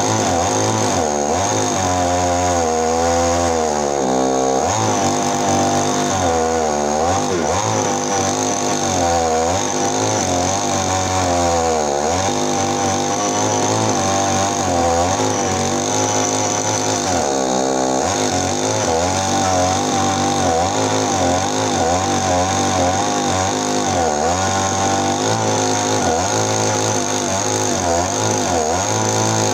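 Chainsaw cutting into areca palm stumps at the roots. Its engine note drops under load and picks back up again many times over.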